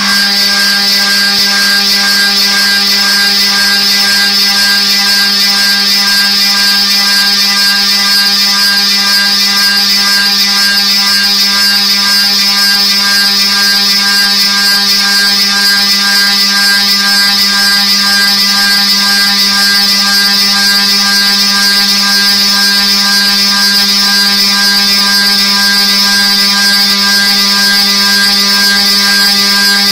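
Drive motors of an automated near-field antenna scanner gantry running as the scanning arm travels slowly along its rails during an automation dry run. A steady whine over a low hum starts abruptly and holds unchanged.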